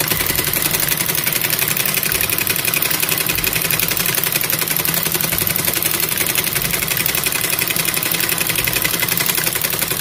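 Industrial high-speed sewing machine with a buttonhole attachment stitching a buttonhole: a loud, rapid, even clatter of stitches that cuts off sharply at the end.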